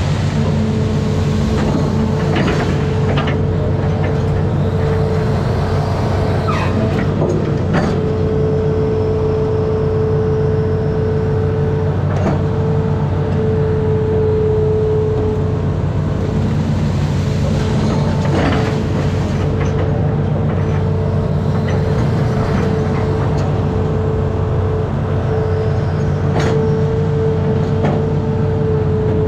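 Amphibious excavator's diesel engine running steadily under load, with a steady whine above the low drone and occasional sharp knocks from the working machine.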